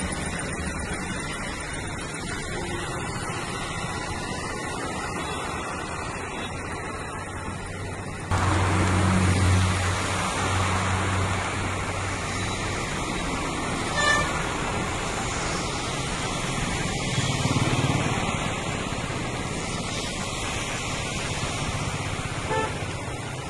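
Heavy rain falling on a wet road while traffic drives through it: a steady hiss of rain and tyres on water, with engines passing. Louder from about a third of the way in, with a low engine hum, and a brief vehicle horn toot just past the middle.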